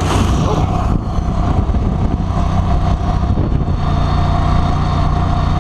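44 hp Mud Buddy Sport V surface-drive mud motor running steadily at speed, pushing the boat across the water.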